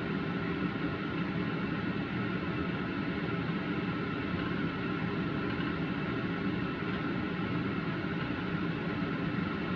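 Red cabbage and onion stir-frying in a wok: a steady, even hiss of cooking with no distinct knocks or scrapes.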